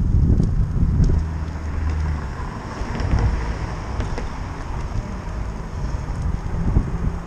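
Wind buffeting the microphone of a camera on a moving bicycle, a dense low rumble that is loudest in the first second. A low steady hum joins it about a second in and fades a second later.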